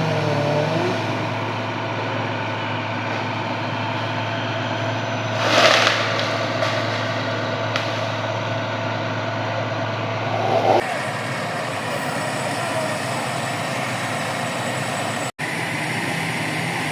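Vehicle engine running steadily, with a short hiss about five and a half seconds in; the sound shifts abruptly about eleven seconds in.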